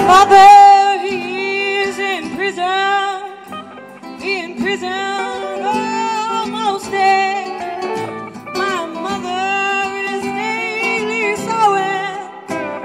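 A live band playing a song: a woman singing lead into a microphone over acoustic guitar, upright bass and electric guitar.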